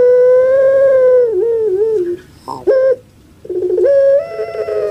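Female ringneck dove (puter) giving its drawn-out, rhythmic 'crying' call. A long, held note wavers and breaks up at its end, a short call follows about two and a half seconds in, and then a second long held note begins.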